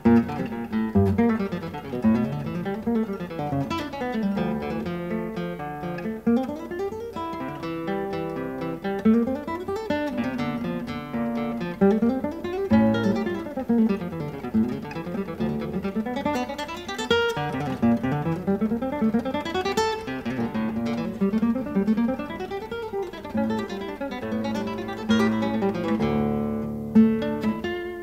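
Background music on acoustic guitar, single notes picked in quick runs that climb and fall over and over.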